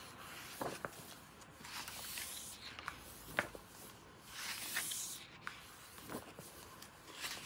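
Pages of a large hardcover art book being turned by hand: soft paper swishes and rustles every couple of seconds, with a few light taps as the pages settle.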